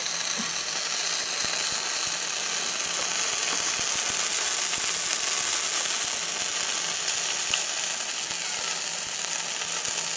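Burger-patty sandwiches sizzling steadily between the hot plates of a closed Tefal OptiGrill Elite contact grill, with scattered small crackles.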